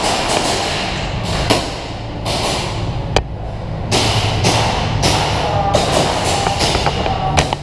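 Airsoft gunfire: a string of sharp cracks and knocks from pistols firing and BBs striking, irregular and sometimes several a second, with the sharpest crack about three seconds in, over a steady low rumble.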